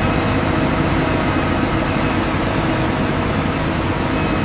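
Heavy machinery running steadily: a loud, unchanging low rumble with a few faint steady tones above it.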